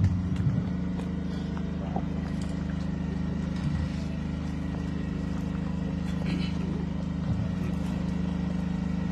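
A steady low hum, with a sharp knock at the very start and a few soft bumps as the podium microphone is handled.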